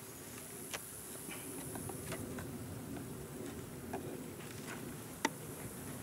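Honey bees buzzing steadily around an open hive, with faint scattered clicks and scrapes of a knife working among the wooden frames and one sharper click about five seconds in.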